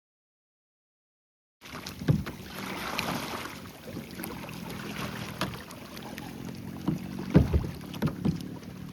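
About a second and a half of dead silence, then kayak paddling: water splashing, wind on the microphone and a steady low hum, with several sharp low knocks of paddles or hull. The loudest knock comes near the end.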